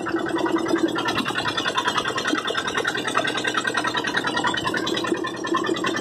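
Background music playing steadily.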